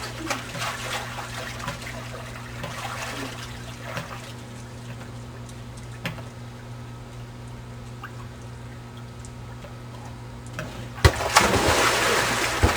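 Running water trickling steadily, with a sharp knock about eleven seconds in followed by a louder rush of noise.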